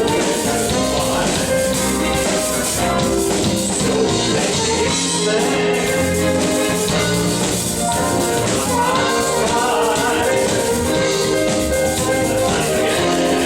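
Smooth jazz band playing live, with a steady drum kit beat under sustained melodic and chord lines.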